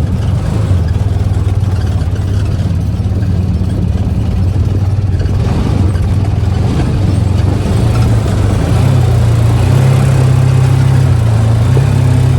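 A small ride-on buggy's engine running steadily, heard from on board, picking up a little in pitch about two-thirds of the way through as it speeds up.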